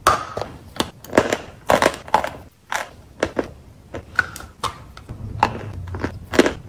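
Close-up crunching of wet white chalk being bitten and chewed: a quick, irregular run of sharp crunches, about two or three a second.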